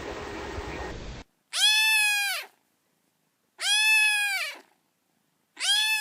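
A cat's meow repeated three times, about two seconds apart, each call rising then falling in pitch and sounding the same, like a looped sound-effect recording with dead silence between the calls. A steady background hiss from the previous clip cuts off about a second in.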